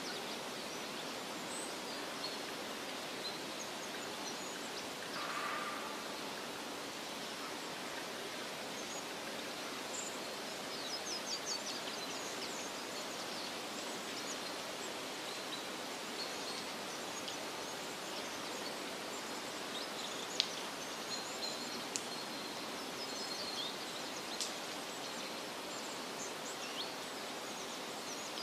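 Woodland ambience: a steady hiss with faint, high bird chirps coming in short runs, and a few sharp clicks in the second half.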